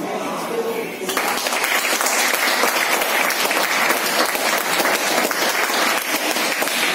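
A small group of people clapping their hands. The clapping starts suddenly about a second in and keeps up steadily.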